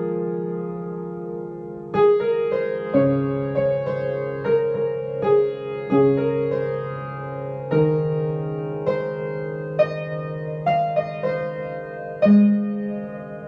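Piano played slowly and softly: held chords under a simple melody, with a new note or chord struck every second or two and left to ring.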